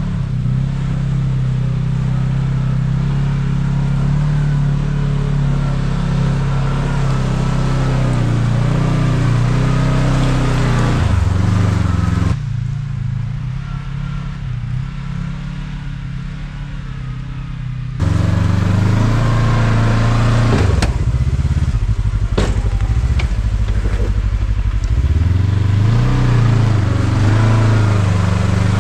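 Kawasaki KRX 1000 side-by-side's parallel-twin engine running at low revs while crawling over rocks. About two-thirds through come a few sharp knocks of the machine against rock, and near the end the revs rise and fall as it climbs a rock step.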